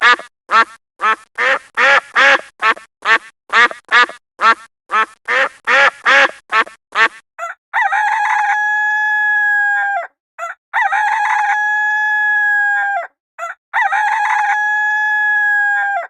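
A duck quacking in a fast run of short quacks, about two and a half a second, for the first seven seconds. Then a rooster crowing three times, each crow a long call of steady pitch lasting about two seconds.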